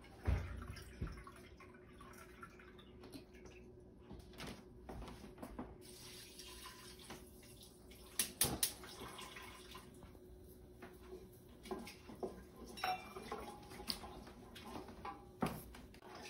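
Hot chicken broth poured from a cup into a pot of risotto rice, with a faint splashing of liquid and a few sharp clinks of cup and pot.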